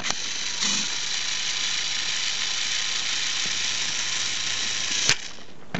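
Small battery-powered toy train motor and gearbox of a Trackmaster engine running with a steady whine. It is switched on with a click and stops with a click about five seconds in.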